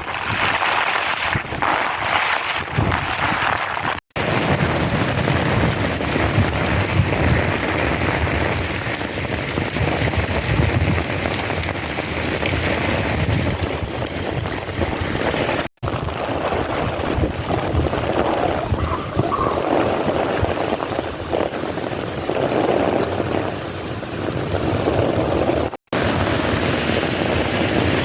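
Heavy rain pouring steadily in a monsoon thunderstorm, with wind rumbling on the microphone. The sound drops out for an instant three times, at joins between recordings.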